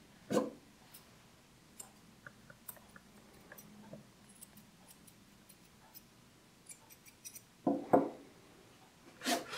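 Faint, scattered snips of curved grooming scissors cutting the long hair around a golden retriever's paw, heard as light clicks. There is a louder knock just after the start and a few louder knocks and rustles near the end.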